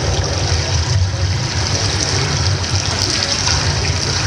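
Loud rushing, gushing water sound effect from the projection show's soundtrack over large loudspeakers, with a steady low rumble underneath.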